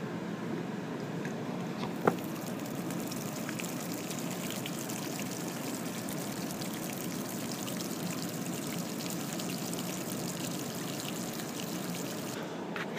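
Battery acid pouring in a steady splashing stream out of a tipped lead-acid car battery onto dry grass and dirt. It starts about two seconds in, just after a single sharp knock, and stops near the end.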